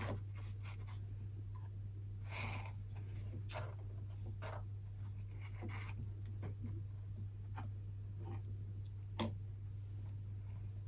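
Faint, scattered scratching strokes and light taps of biscuit decorating at a table, over a steady low hum.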